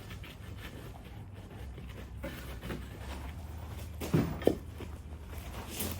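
Two sharp knocks about four seconds in, half a second apart, over a steady low hum.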